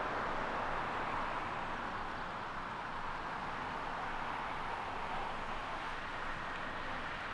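Jet airliner's engines on the landing rollout: a steady rushing roar that slowly fades as the aircraft runs down the runway.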